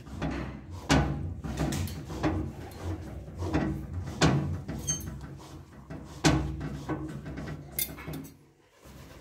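Irregular plastic knocks, clicks and scraping as a plastic sink trap and its corrugated drain hose are handled and pushed onto the sink's drain outlet. The sound gets quieter near the end.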